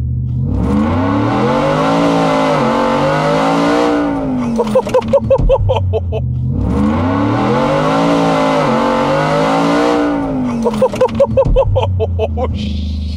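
Supercharged 5.0 L Coyote V8 in a 2020 Ford F-150 at full throttle from a launch, heard from inside the cab: the engine revs climb, dip at an upshift about two seconds into the pull, then climb again. The same pull is heard twice in a row.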